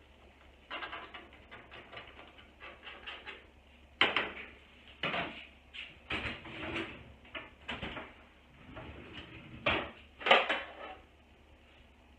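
Kitchenware clattering as dishes are handled at a dish rack: light, irregular clicks at first, then a series of sharper knocks and clanks.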